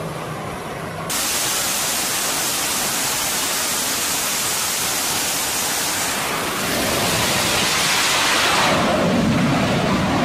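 F/A-18 Super Hornet's twin jet engines at full power for a catapult launch: a loud, steady rush of jet noise that starts abruptly about a second in and turns deeper near the end.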